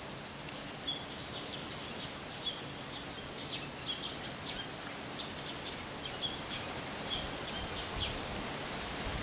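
A small bird chirping in a quick series of short, high notes over a steady outdoor hiss. The chirping stops about three-quarters of the way through.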